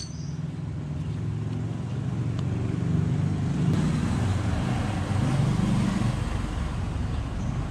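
A motor vehicle engine running steadily, a little louder from about three seconds in.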